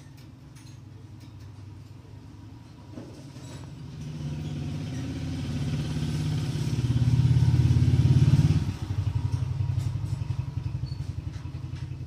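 An engine running, with a fast, even pulse and a low pitch. It swells to its loudest from about 7 to 8.5 seconds in, then drops off suddenly and carries on more quietly.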